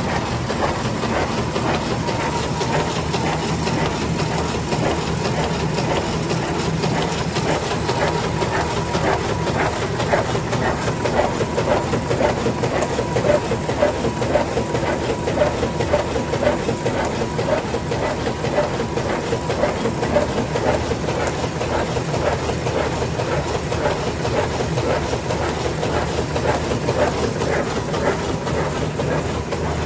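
Müller Martini 3210 book-sewing machine running steadily, a fast, even mechanical clatter of rapidly repeating clicks.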